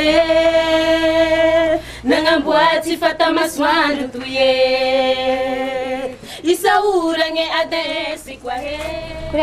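A woman singing, holding long steady notes between shorter phrases.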